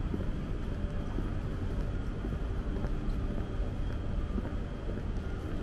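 Steady ambience of a crowded outdoor fair: a dense, even rumble of many people moving about, with faint scattered clicks and taps of footsteps.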